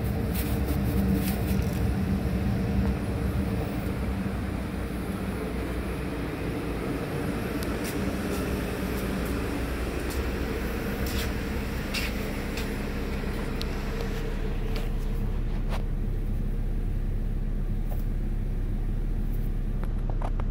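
2012 Chevy Cruze 1.8-litre four-cylinder engine idling steadily. It is first heard right at the tailpipe, then from the open driver's door and cabin, where it settles into a lower, even hum. A few light knocks come in the middle.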